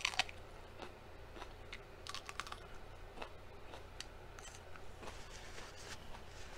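Close-up chewing of a bite of raw mini sweet pepper: faint, irregular crisp crunches and mouth clicks, sharpest as the bite is taken.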